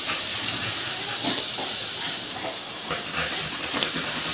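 Steady hiss of a fine water spray misting over a soaped dog, rinsing it off.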